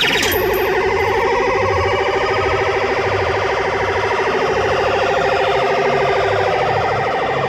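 RG Mitchell Space Bike coin-operated kiddie ride's electronic sound effect: a rapidly warbling, siren-like tone that starts abruptly and holds steady.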